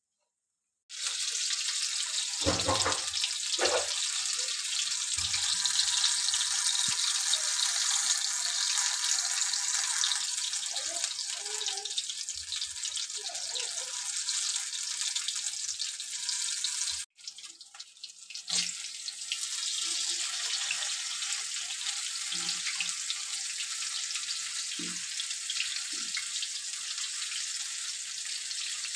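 Gobi pakoras (batter-coated cauliflower florets) deep-frying in hot oil in a kadai: a steady sizzling hiss that starts about a second in, with a few soft knocks near the start. It drops out for a moment about two-thirds of the way through, then carries on.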